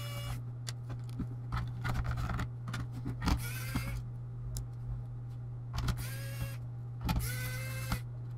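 Pen-style electric precision screwdriver whirring in four short bursts, each rising in pitch as the motor spins up, while backing screws out of a laptop's plastic bottom case. Small clicks of screws and handling come between the bursts, over a steady low hum.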